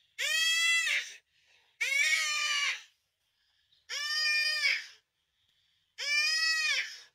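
Young antelope bleating in distress while held by a cheetah: four drawn-out bleats, each about a second long and about two seconds apart.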